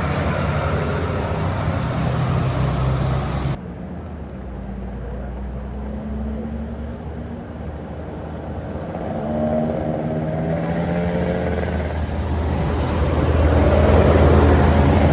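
Diesel bus engines working uphill on a wet road, with a hiss of rain and wet tyres. The sound drops sharply a few seconds in, then a bus engine grows louder again toward the end.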